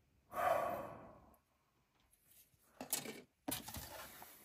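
Plastic model-kit sprues and their bags being handled: a burst of rustling near the start, a few light plastic clicks about three seconds in, then more rustling near the end.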